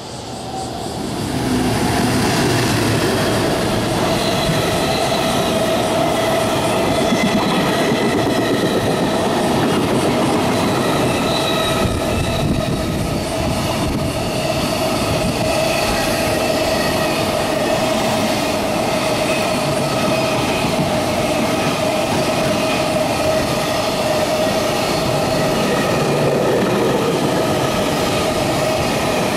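EF210 electric locomotive and its long train of container flat wagons passing close by at speed. The sound swells over the first two seconds as the locomotive arrives, then holds as a loud, steady rolling rumble of steel wheels on rail, with a ringing wheel tone throughout.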